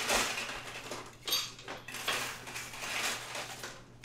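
Kitchen clatter: dishes and utensils knocking and clinking several times, with one bright ringing clink about a second in.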